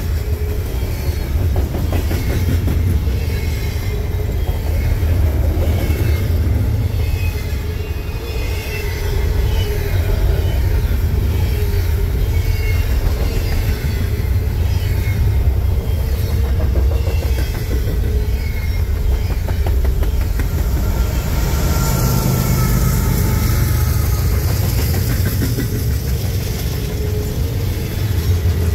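Double-stack intermodal container well cars rolling past at speed: a steady rumble of steel wheels on the rails with rapid clattering and clicking.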